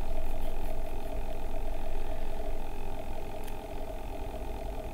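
Steady background hum: a constant mid-pitched drone over a low rumble, with one faint click about three and a half seconds in.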